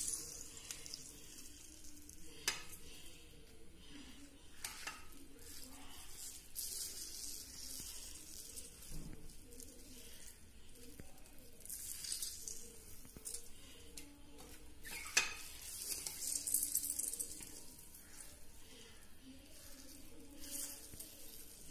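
Faint wet squelching and dripping as salted taro stalk pieces are squeezed by hand to press out the water the salt has drawn from them, with a couple of light clicks of pieces dropping onto a plate.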